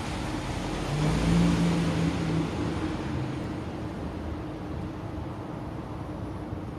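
Road traffic: a passing vehicle's engine swells, loudest about a second or two in, then fades into a steady traffic hum.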